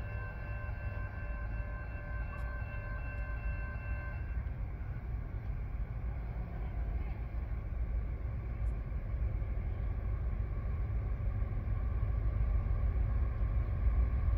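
Rumble of a CSX freight train, getting louder toward the end. A steady high ringing of several tones stops about four seconds in.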